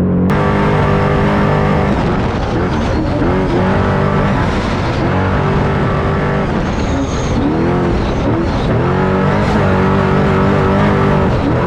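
Off-road truck's engine running hard at high revs, its pitch dipping briefly and climbing back several times.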